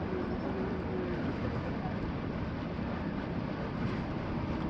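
Steady outdoor background noise, a low rumble and hiss with no distinct events, and a faint voice heard briefly.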